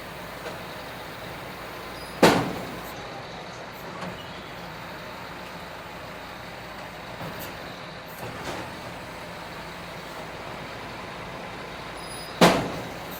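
Tractor engine running steadily while a Claas round baler's hydraulic tailgate is cycled, with two heavy metal clunks about ten seconds apart as the tailgate moves and latches, and a few lighter knocks between them.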